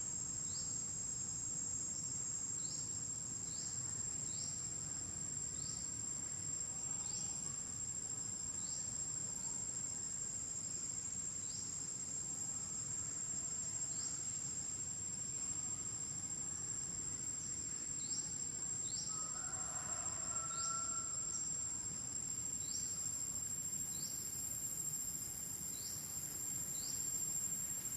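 Insects calling: a continuous high-pitched drone with short rising chirps repeating roughly once a second, over a low background hum. A brief faint call sounds about twenty seconds in.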